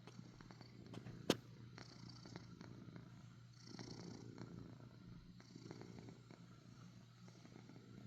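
Domestic cat purring softly, in slow swells about every two seconds, with one sharp click a little over a second in.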